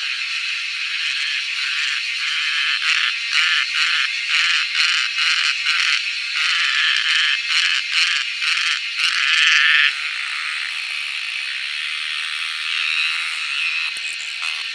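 Cicadas singing: a steady high-pitched buzzing chorus, with a louder cicada close by calling in rapid pulses for several seconds that swell into one sustained loud buzz before it stops.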